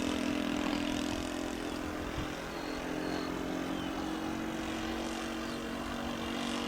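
Model aircraft's OS .95 glow engine running steadily, a propeller drone that holds a nearly even pitch throughout.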